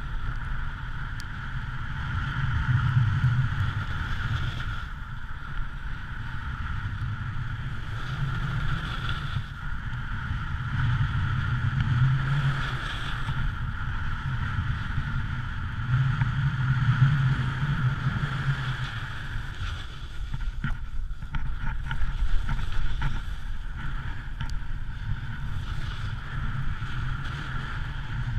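Snowboard sliding and scraping over packed snow, mixed with wind rushing over the pole camera's microphone: a steady rushing noise with a low rumble that swells and eases several times.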